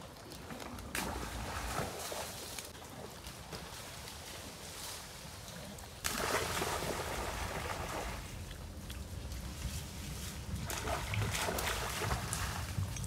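Steady rain falling, with a low rumble underneath; the rain becomes suddenly louder about six seconds in.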